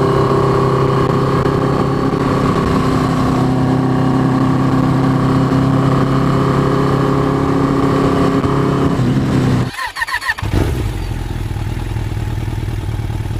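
1987 Suzuki GS650L inline-four engine running at steady, held revs. About ten seconds in the sound breaks off briefly, then the engine carries on more quietly and evenly.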